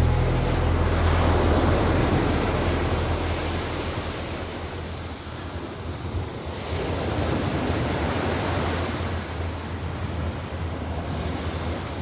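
Black Sea surf washing up on a sandy beach: waves rush in and draw back, swelling early on and again about six to seven seconds in. Wind rumbles on the phone's microphone underneath.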